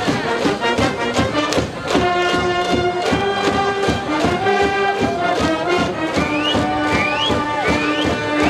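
High-school brass band playing a cheering tune with a steady drum beat, the cheering section's voices underneath. Held brass notes come in about two seconds in, and three short rising whoops sound near the end.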